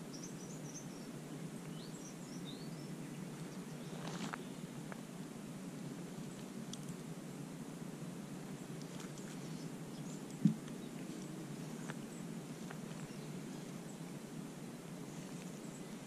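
Quiet bushland ambience over a steady low background hum, with a few short high bird chirps in the first couple of seconds. A brief rustle comes about four seconds in, and a single short low thump about ten seconds in is the loudest sound.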